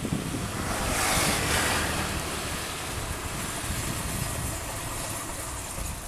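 GreenStar combine harvester running with a steady low engine rumble. A rushing hiss swells about a second in and then eases.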